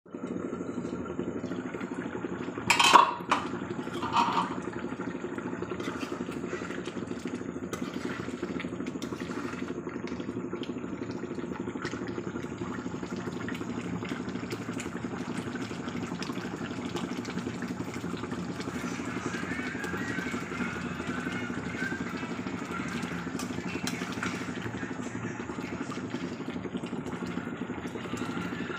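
A metal pot lid clanks twice, about three and four seconds in, as it comes off the pot. Then a metal spatula stirs and scrapes through a thick curry in the pot with light clicks, over a steady low hum.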